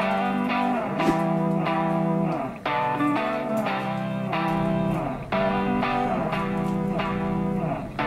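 Background instrumental music led by guitar, its notes held for about a second each before changing.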